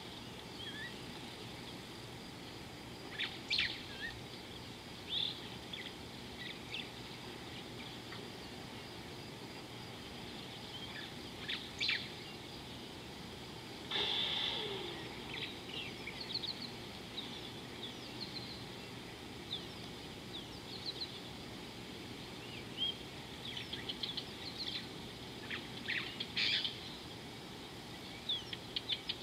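Wild birds calling at intervals: short high chirps and whistles, scattered at first and denser near the end, with one louder, longer call about halfway through, over a steady outdoor hiss.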